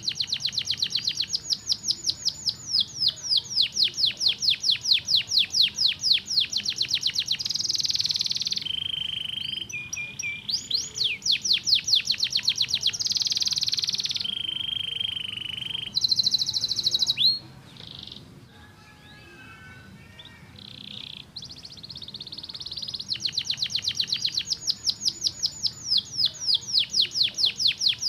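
Domestic canary singing: long rapid trills of repeated high down-sweeping notes, broken by steady whistled notes and short buzzy phrases, with a softer passage about two-thirds of the way through before the fast trills return.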